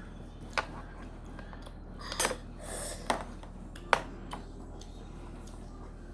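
Eating sounds: a utensil clicking sharply against a dish about four times, with a short noisy moment of eating after the second click, over a steady low hum.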